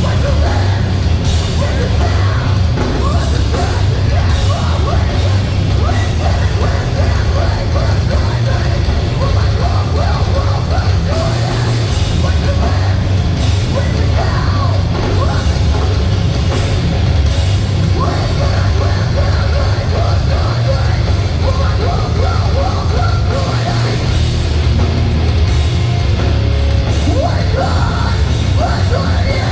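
Live metalcore band playing loud through a festival PA: distorted guitars, bass and drums, with yelled vocals, heavily bass-boomy and distorted as recorded from the crowd.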